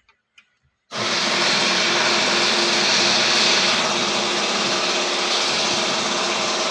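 Starter motor cranking a 1991 Toyota Hilux diesel engine, starting abruptly about a second in and running steadily without the engine catching. It is a low, laboured crank with a strong battery: low cranking, no start.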